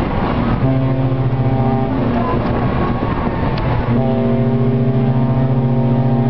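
A loud, steady humming drone that drops out twice and comes back, over a noisy rush of traffic on the bridge.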